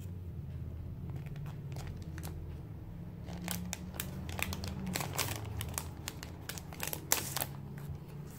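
Clear plastic sleeve crinkling in a string of short, irregular crackles as sticker sheets are handled and slid out of it, most of them in the second half, over a low steady hum.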